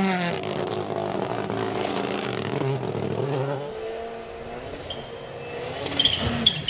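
Rally car engine revving hard, its pitch falling at first and then shifting up and down as it is driven, going quieter about four seconds in; a few sharp cracks near the end.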